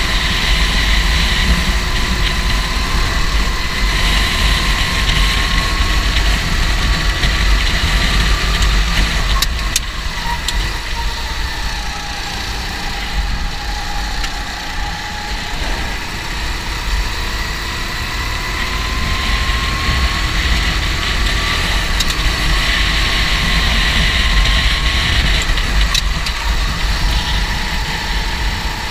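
Go-kart engine running continuously, its pitch falling from about ten seconds in and rising again from about sixteen seconds.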